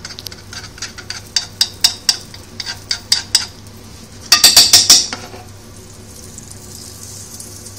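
A utensil clicking and scraping against a frying pan while butter melts in it, with a short burst of louder clattering about four seconds in, then a faint sizzle of the melting butter.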